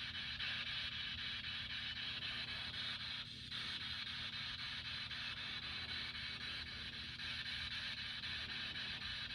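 Steady hiss over a low, even hum, with no distinct events.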